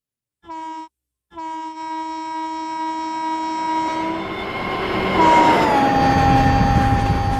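Train horn: one short blast, then a long sustained blast, with the rumbling noise of the train running building up under it. About five seconds in the horn's pitch drops slightly and holds.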